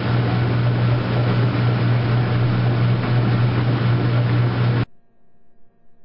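Washing machine running: a steady motor hum under an even whirring rush of noise, which cuts off abruptly about five seconds in.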